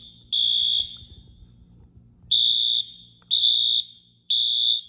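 Simplex fire alarm speaker sounding a high-pitched temporal-three evacuation tone: the last beep of one set of three, a pause of about a second and a half, then three more beeps a second apart.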